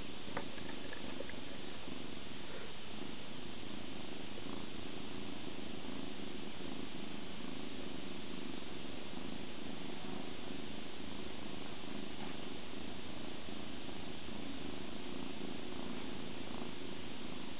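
Kitten purring steadily while being stroked and dozing off.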